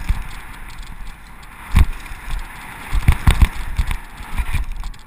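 Mountain bike running fast down a rough dirt downhill trail: a steady rumble and hiss from tyres and rushing air, broken by hard knocks and rattles as the bike hits bumps. The loudest knocks come about two seconds in and a cluster just after three seconds.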